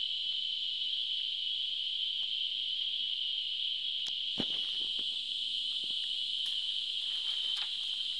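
A chorus of insects in the trees makes a steady, high-pitched, unbroken drone. There is a single short knock about four seconds in.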